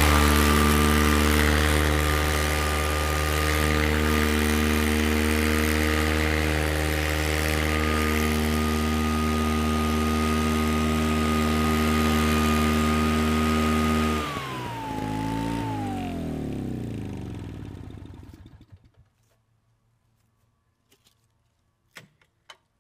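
Allen hover mower's small petrol engine running steadily at full speed while its 3D-printed plastic trimmer blades cut grass and leaves. About 14 seconds in it is shut off, and its pitch falls as it winds down to a stop. A few faint clicks follow near the end.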